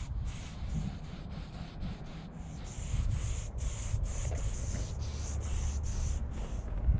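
Aerosol spray paint can hissing as paint is sprayed onto a wall, broken by a few short stops and steadier through the middle, over a low rumble.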